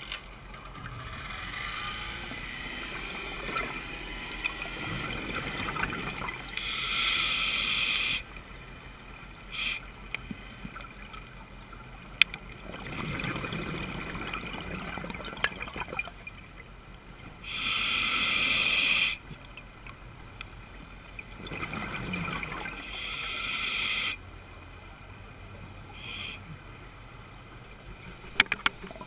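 Scuba diver breathing through a regulator underwater: loud bubbling bursts of exhaled air every several seconds, three long and two short, over a steady underwater hiss, with a few sharp clicks.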